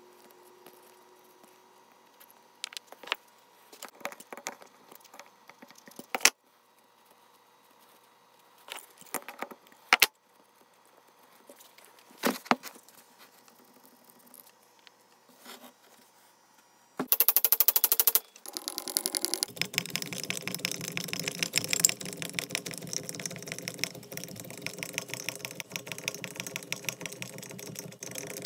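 Scattered clinks and knocks of metal parts and tools being handled, then about two-thirds of the way in a small power tool starts, running with a fast, even rattling buzz, loudest for its first second or so, and keeps going to the end.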